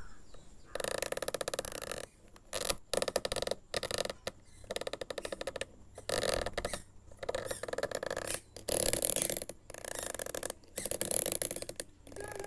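A small mechanical tool buzzing in repeated bursts of about a second each, every burst a rapid rattle of fine clicks, with short pauses between.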